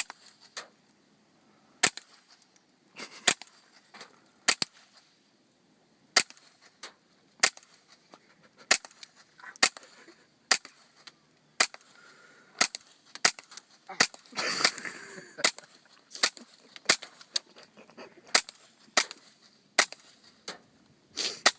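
Suppressed Colt M4 .22 LR semi-automatic rifle firing about two dozen single shots, roughly one a second at an uneven pace. Each report is a short, sharp crack, muffled by the silencer.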